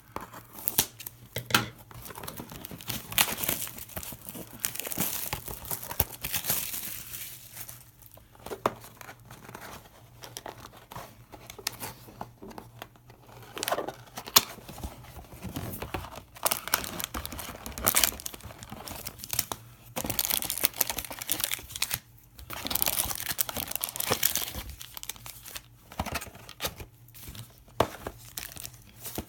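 Packaging of a 2017 Panini Prizm football trading card box being torn open and crinkled by hand: irregular tearing and crinkling with sharp clicks and rustles throughout.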